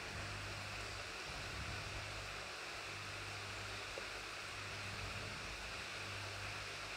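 Cooking oil sizzling steadily under slices of king oyster mushroom searing in a non-stick pan, with a low hum that comes and goes underneath.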